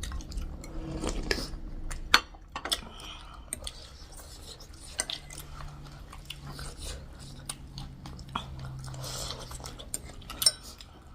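Close-up eating sounds: chewing, with scattered clinks of cutlery against dishes as spicy pork thukpa and chicken are eaten, over a faint steady low hum.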